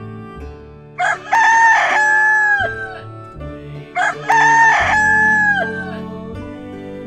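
A rooster crowing twice, each crow a short note followed by a long held one that falls away at the end. Soft background music runs underneath.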